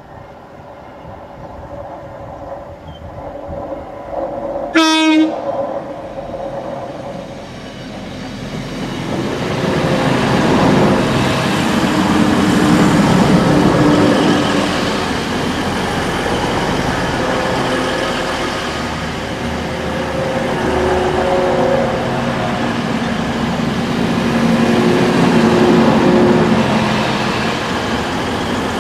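Class 185 diesel multiple unit sounding a short horn blast about five seconds in, then passing close by, its underfloor Cummins diesel engines running with a steady engine tone over wheel noise on the rails. The sound builds from about eight seconds in and stays loud as the train goes by.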